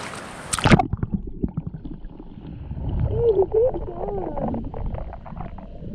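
A splash as the microphone plunges under the surf, then muffled underwater sound: low rumbling and gurgling of shallow moving water with scattered small clicks, and a brief muffled voice near the middle.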